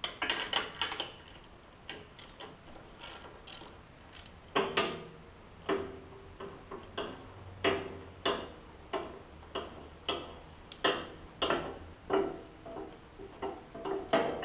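Socket ratchet clicking in short bursts, one swing after another about once or twice a second, as a fastener on a small engine is worked loose.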